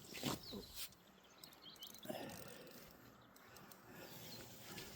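Quiet outdoor ambience with a few faint bird chirps and some small, indistinct knocks.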